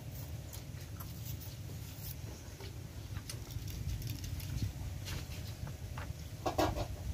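Low wind rumble on the microphone with scattered small clicks and scratches from a knife cutting fruit by hand, and one short louder sound about six and a half seconds in.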